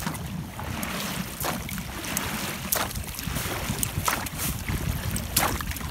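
Oars being pulled hard through the water, driving an inflatable rowing boat at full speed: irregular sharp knocks and splashes from the strokes over a steady rumble of wind on the microphone.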